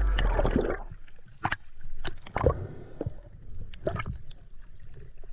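Seawater sloshing and gurgling around a camera held at the surface, with scattered sharp clicks and knocks from water and gear striking it. The loudest knock comes about halfway through.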